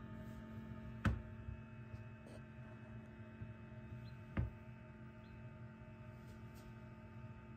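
Egg incubator running with a low, steady hum, broken by two sharp knocks, about a second in and again after four seconds.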